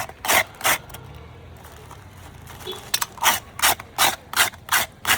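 Ice being shaved by hand for a raspado, in quick scraping strokes: two near the start, then a pause of about two seconds, then a run of about seven strokes at roughly three a second.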